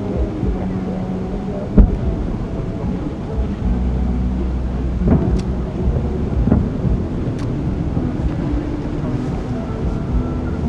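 Distant fireworks shells bursting as dull booms over a low rumble, the loudest about two seconds in and two smaller reports around five and six and a half seconds in.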